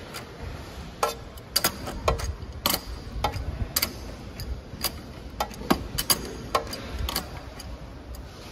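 Irregular metallic clicks and clinks of an adjustable wrench working the bolts on a stainless steel machine base plate as they are tightened, about one or two a second.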